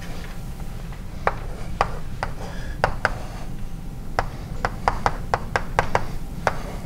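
Hand-writing on a board: a string of irregular sharp taps and short scratches, about twenty in seven seconds.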